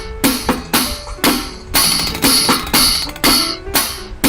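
A steady drum beat, about two sharp strikes a second, played as a sound effect with music for a child noisily drumming.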